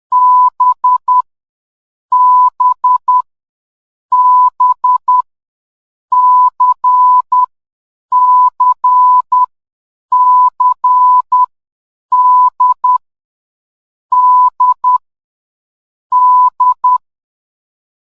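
Morse code sent as beeps at one steady, fairly high pitch, one letter about every two seconds: B (dah-dit-dit-dit) three times, then C (dah-dit-dah-dit) three times, then D (dah-dit-dit) three times.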